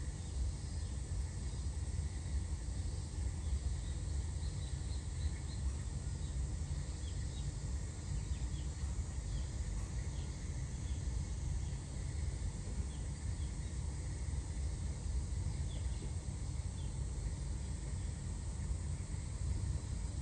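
Steady low background rumble of outdoor ambience, with faint, short high chirps scattered through the middle.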